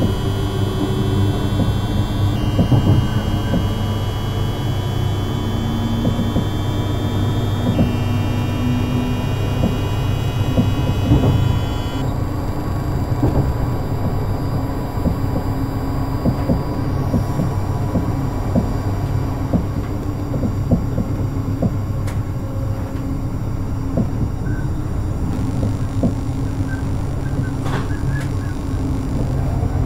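Siemens SIBAS 32 IGBT VVVF traction inverter of a Class 333 electric multiple unit, its whine jumping up and down in pitch in steps as it changes modulation modes under power, then cutting out about twelve seconds in. The train's steady running rumble, with occasional clicks, continues throughout.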